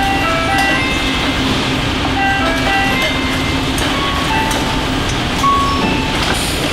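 Car assembly-line noise: a steady machine hum under a simple electronic tune of single beeping notes, with a few sharp clicks, the loudest about five and a half seconds in.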